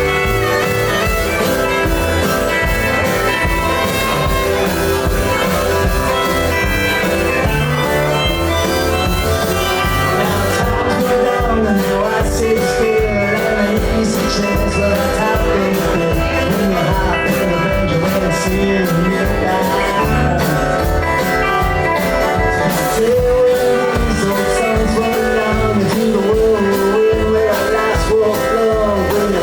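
A band playing a blues-rock song, with guitar.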